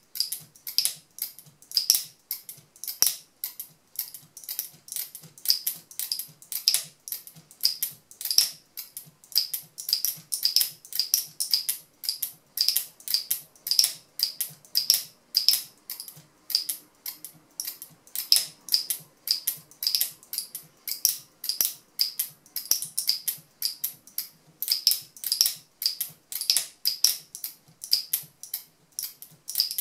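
Turquaz speargun camera mount's locking mechanism clicking over and over as an action camera in its underwater housing is snapped onto it and released again, a quick, steady run of sharp clicks, several a second.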